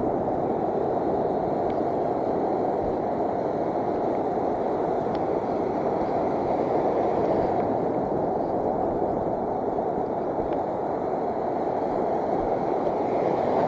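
Steady rushing noise of wind and breaking surf on an action camera's microphone, with no distinct events.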